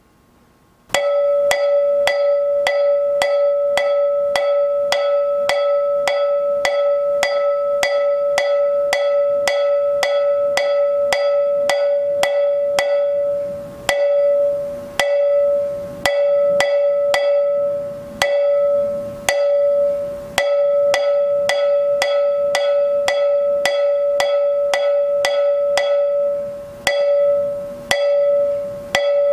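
Hand-held cowbell struck on its open end with a drumstick in a fast, even rhythm of about three strokes a second. Its bright ring carries over between strokes. Playing starts about a second in, and in the second half it stops briefly several times, letting the ring fade before the strokes resume.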